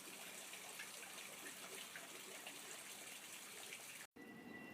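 Steady rain falling, with many small drips and patters, cutting off abruptly about four seconds in; a faint steady high tone follows.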